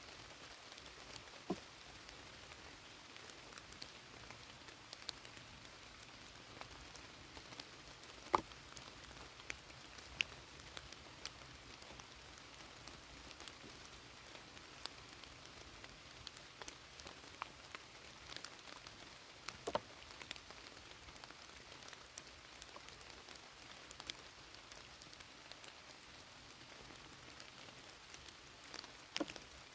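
Steady rain falling on the forest, with scattered louder drops ticking sharply close by.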